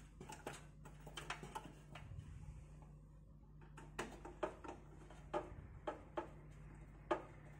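Irregular sharp clicks and taps of a screwdriver and small screws being worked against a PC cabinet's metal chassis while the motherboard is screwed in, with a few louder clicks in the second half. A low steady hum runs underneath.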